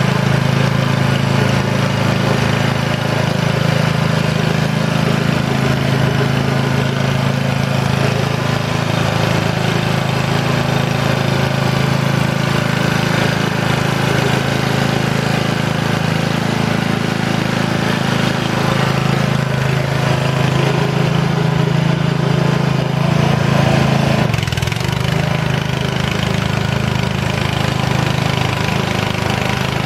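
Small petrol engine of a Muck-Truck wheeled mini dumper running steadily as the loaded dumper drives along, its note shifting briefly late on.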